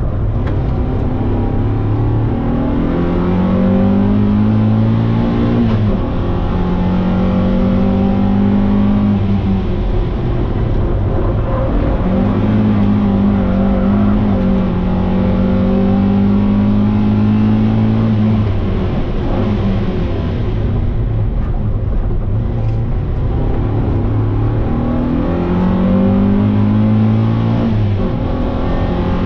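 Mazda MX-5's four-cylinder engine, heard from inside the car, driven hard on a circuit. The revs climb under acceleration, hold, then fall away for braking several times over, with a long pull in the middle and a quieter lift near three-quarters of the way through.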